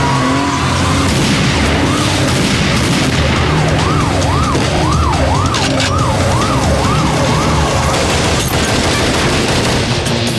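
Emergency-vehicle siren wailing in quick rising-and-falling sweeps, about two a second, starting about two seconds in and stopping a little before eight seconds, over a steady low background.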